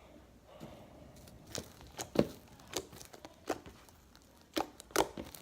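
Slime being squeezed and pulled apart by hand, making irregular sharp clicks and pops with some tearing and crinkling. The clicks start about a second and a half in, roughly seven of them; the loudest comes a little after two seconds.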